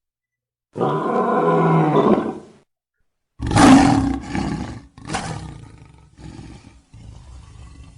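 Lion roaring: a long call about a second in, then a louder one around three and a half seconds, trailing off into shorter, fainter calls.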